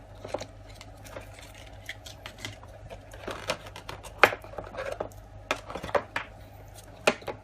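Irregular clicks, taps and knocks of a Wi-Fi doorbell unit and its box and parts being handled and taken out, with one sharper knock about four seconds in.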